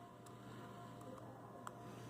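Three faint, sharp little clicks over a low steady hum, like small parts or tools being handled during the phone repair.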